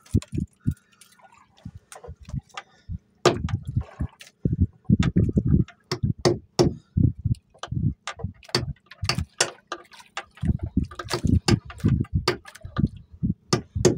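Water splashing and sloshing with irregular clicks and knocks while a fish is fought on a handline.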